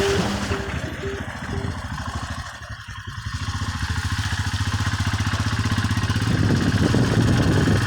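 Motorcycle engine running on the move: it eases off for a moment about three seconds in, then picks up and grows louder toward the end. A few short beeps sound in the first second or two.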